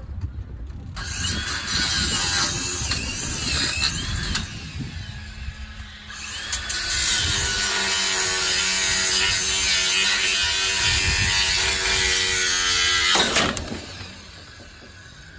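A handheld power tool working on metal during scrapping, run in two stretches: a shorter, uneven one from about a second in, then a longer steady run with a constant motor pitch that stops about two seconds before the end.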